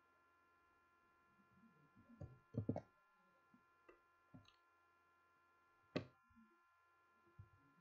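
Near silence: faint room tone with a steady hum, broken by a few short knocks, a cluster of them about two and a half seconds in and one sharp knock at about six seconds.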